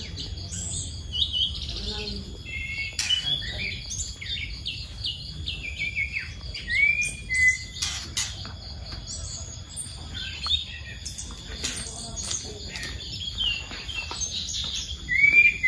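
Songbirds singing a run of varied whistles, chirps and short rising notes over a steady high-pitched tone.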